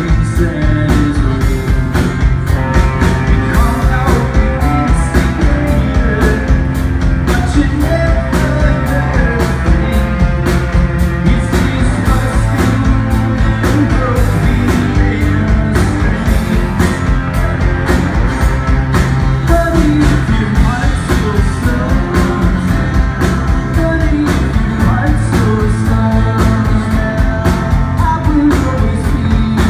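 Live rock band playing a song: strummed acoustic guitar, electric guitar, bass and drums keeping a steady beat.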